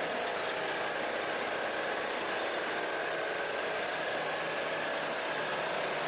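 An engine running steadily, with a steady high whine over it.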